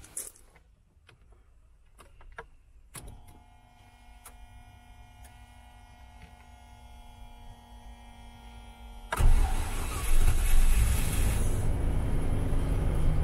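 Key clicks, then the ignition switches on with a faint steady electrical hum. About nine seconds in, the 1995 Range Rover's engine starts from cold and runs on at idle.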